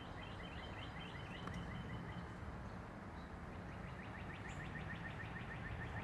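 Birds chirping in a tree: rapid runs of short, evenly repeated chirps, one in the first second and a half and another starting about four seconds in, over faint steady background noise.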